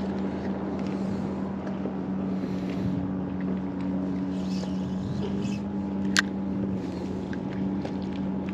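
Steady engine drone with a low, even hum, and one sharp click about six seconds in.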